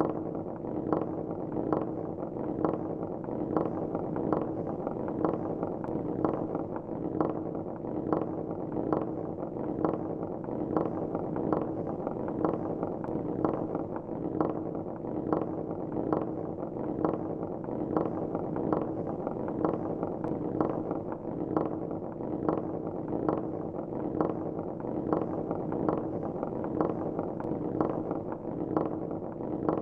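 Marbles rolling down a spiral marble-run track: a steady rolling rumble with a regular clack about twice a second.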